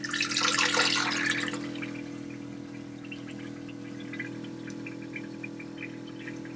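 Electric marine toilet's pump motor running with a steady hum while water rushes into the bowl, filling it. The splash is loudest in the first second or two, then settles.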